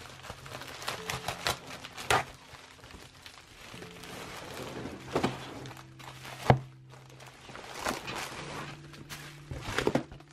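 Plastic mailer and bubble wrap rustling and crinkling as bubble-wrapped packages are pulled out and handled, with several thumps as they are knocked and set down; the loudest thump comes about six and a half seconds in.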